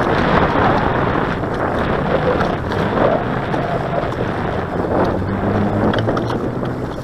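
Wind rushing over the microphone in gusts, with choppy lake water lapping close by.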